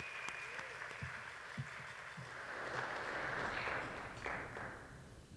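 Audience applauding in a hall. The clapping swells to its loudest a little past the middle, then dies away near the end.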